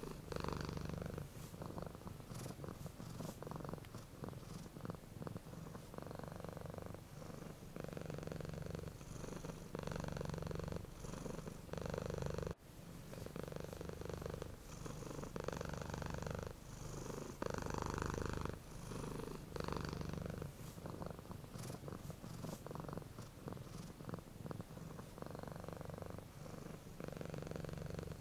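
Domestic cat purring steadily, the purr swelling and easing with each breath in and out, about one breath every one to two seconds. There is a brief break about halfway through.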